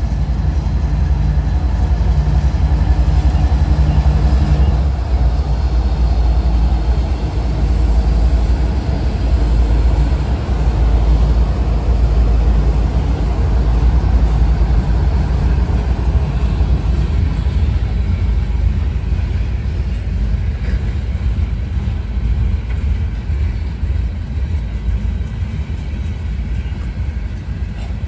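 CSX freight train passing close by: the diesel engines of its two GE locomotives run past in the first few seconds, then a steady rumble of freight cars rolling over the rails that eases slightly near the end.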